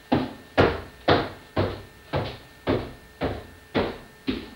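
Heavy, evenly paced footsteps, about two a second: nine thuds in a row, each with a short echoing tail.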